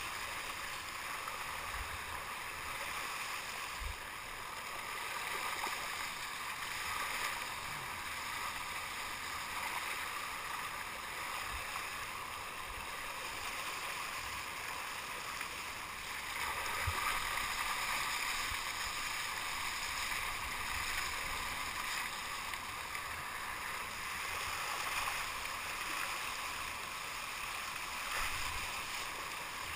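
Steady rush and splash of water along a moving sea kayak's hull and bow wave, with a few short low thumps.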